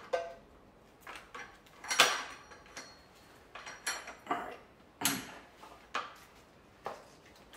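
Steel hand tools clinking against metal: a camshaft counter-holding tool and a ratchet being set onto the exhaust cam sprocket bolt of an Audi 2.0 FSI cylinder head. About ten separate light clinks at an uneven pace, a few ringing briefly.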